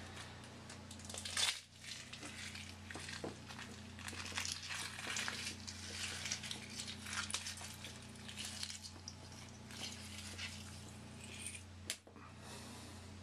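Raw egg being crushed and rubbed into a long beard by hand: irregular crackling, wet squishing and rustling of beard hair, with a loud burst about a second and a half in and a sharp click near the end.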